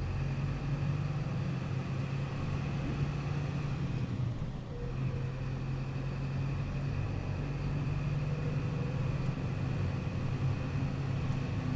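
Truck's diesel engine running steadily at cruising speed with road noise, heard inside the cab; the engine note eases briefly about four seconds in.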